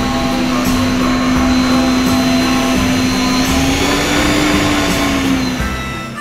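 Electric stand mixer motor whirring steadily as it whisks juice, with a steady hum that rises slightly in pitch about four seconds in and then fades out near the end.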